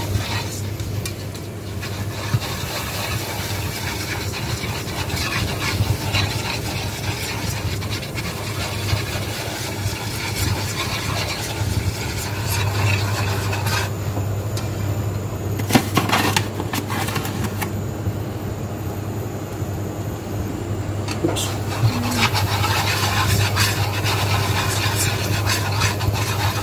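Coil whisk scraping and rubbing continuously around a non-stick frying pan as a butter-and-flour roux is stirred, with a few sharper clicks of the wire against the pan about halfway through. A steady low hum runs underneath.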